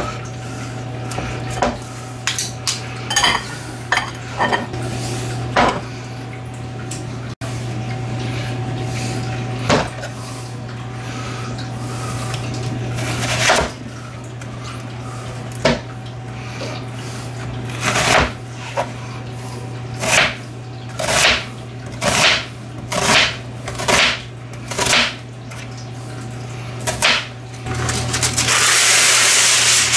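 Kitchen food prep: a metal garlic press knocks and clacks against a ceramic bowl, then a knife cuts an onion on a plastic cutting board in a run of about ten strokes roughly a second apart. A steady low hum runs underneath, and a steady hiss starts near the end.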